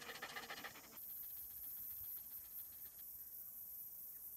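A dog panting rapidly at close range, worn out in the heat. About a second in the panting cuts away to a faint, steady high hiss.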